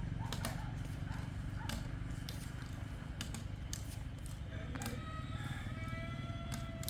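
A rooster crowing: one long, held call that starts about two-thirds of the way in. It sounds over a steady low rumble and scattered sharp clicks.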